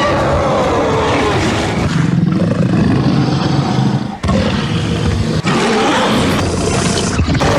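Creature roar sound effect for a fictional monster: a long, rough, growling roar with a falling pitch at the start, broken by short dips about four and five and a half seconds in.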